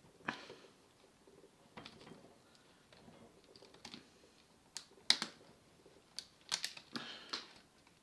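Irregular sharp clicks and taps of a screwdriver working on the small plastic and metal parts of a cassette deck's tape mechanism, as tiny retaining clips are pried off the cog wheels. There are a few isolated clicks at first, then a quicker run of them about five seconds in.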